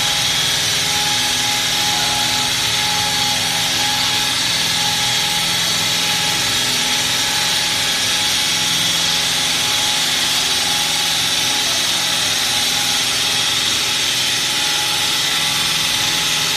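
HWS-800TM hydraulic wall saw and its power pack running steadily, a constant machine drone with a high whine and no breaks.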